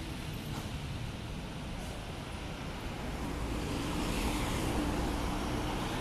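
Berlian Jaya coach bus driving past, its engine and tyre noise swelling to its loudest about four to five seconds in as it passes closest, over steady road traffic.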